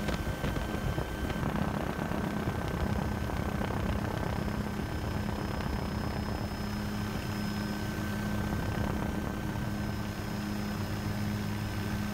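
Helicopter running steadily: a constant drone with thin, unchanging high tones above it.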